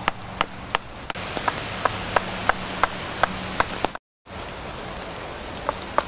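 Mallet striking a chisel cutting into a living tree trunk: sharp, regular taps about three a second, with a short break of silence about four seconds in.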